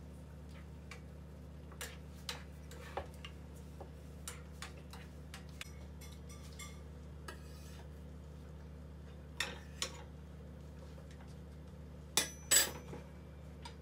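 Scattered light clicks and knocks of a wooden rolling pin rolling out flatbread dough on a plastic board, over a steady low hum. Near the end a metal spatula hits the frying pan twice with a loud clatter and a short metallic ring.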